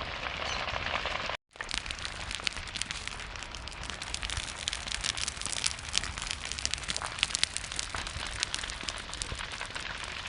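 Burning vegetation crackling and popping steadily in a grass or brush fire, with a dense stream of sharp cracks. The sound cuts out completely for a moment about a second and a half in, then resumes.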